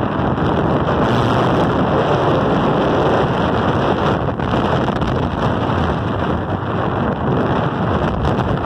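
Steady wind rushing over the microphone of a skier moving fast downhill, mixed with the hiss of skis sliding over packed, groomed snow.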